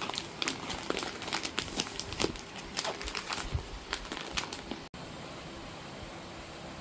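Crinkling and crackling of something being handled: a dense run of irregular sharp clicks. It cuts off abruptly about five seconds in, leaving a steady hiss with a faint hum.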